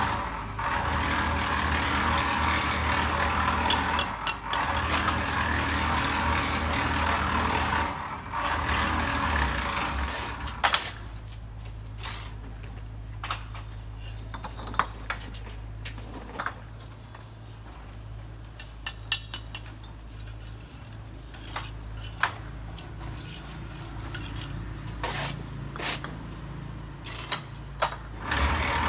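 Bricklaying: steel trowels scraping mortar and tapping bricks, with scattered sharp clinks and knocks that stand out from about ten seconds in. Under them runs a steady low motor hum, which is louder and noisier for the first ten seconds.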